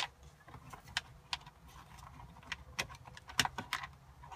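Irregular light clicks and taps of hard plastic, about a dozen, as a 2002 Honda Accord's instrument cluster is worked loose by hand from the dashboard.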